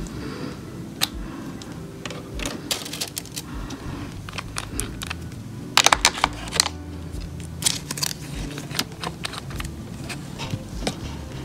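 Small gel polish bottles and their caps clicking and knocking against each other and a plastic holder tray as they are handled, with a quick cluster of loud clacks about six seconds in, over a low steady hum.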